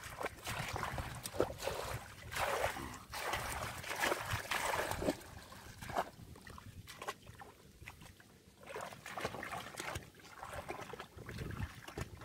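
Shallow muddy water splashing and sloshing as a person wades and works their hands through it, in irregular bursts that are busiest in the first half and ease off for a few seconds before starting again.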